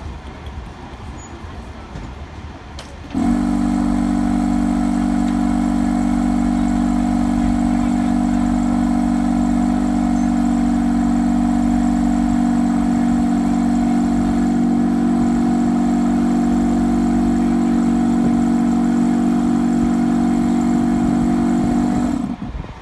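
A standing Blackpool Balloon double-deck tram's on-board machinery running with a loud, steady hum of several fixed pitches. It cuts in suddenly a few seconds in and cuts off just before the end.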